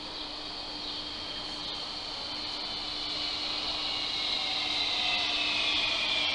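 An SBB RABe 523 (Stadler FLIRT) electric multiple unit pulling in and slowing. Its high whine sinks slowly in pitch and grows steadily louder as it approaches.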